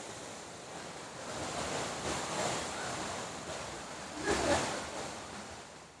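Steady rush of water from a monsoon-swollen waterfall and its stream, briefly a little louder about four seconds in.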